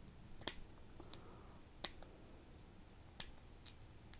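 About five light, sharp clicks and taps, unevenly spaced, from a DOXA SUB 200 dive watch being turned over and handled.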